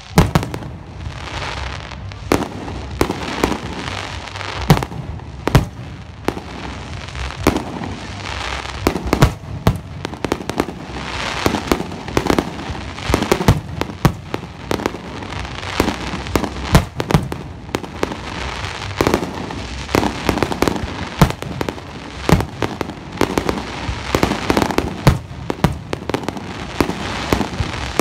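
Fireworks display in a rapid barrage: aerial shells and lower bursts go off several times a second in a continuous run of booms and crackling, with no pauses.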